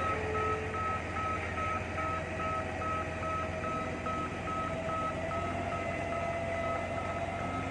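Reversing alarm of a large 8-ton forklift beeping in quick, evenly spaced beeps at one pitch as it backs up, over the steady hum of its engine.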